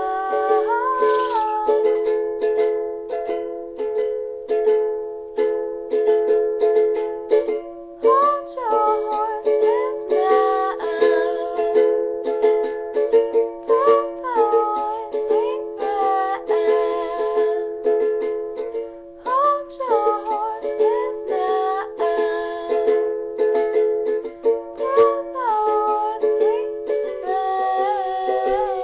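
Ukulele strummed steadily in a regular rhythm, with one voice singing over it in phrases of a few seconds and short gaps between them.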